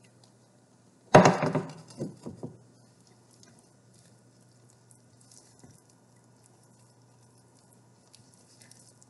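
A metal saucepan clatters against a glass bowl and the stovetop about a second in, followed by a few lighter knocks. After that, faint scraping and stirring of thick oat-and-chocolate mixture with a silicone spatula in the glass bowl.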